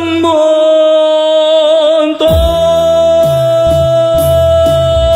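A Vietnamese hymn with a backing track: a singer holds one long note on the closing word 'tôi', with a slight waver, while bass and drums come in about two seconds in.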